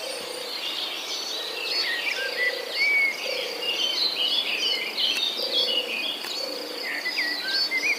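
Many birds chirping and twittering together in quick overlapping calls and short whistled glides. Underneath, a low pulsing call repeats about once a second.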